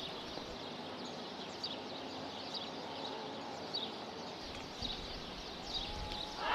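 Open-air field ambience: a steady low hiss with small birds chirping faintly, a short chirp every half second to a second.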